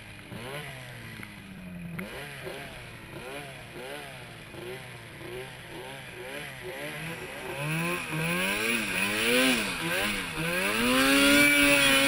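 Turbocharged Arctic Cat snowmobile engine under throttle in deep powder, its revs rising and falling over and over. In the last few seconds it gets louder and the revs climb and stay high.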